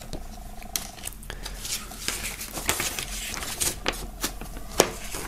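Paper being handled: a folded poster taken out and opened up by hand, with irregular rustles and crackles of the paper.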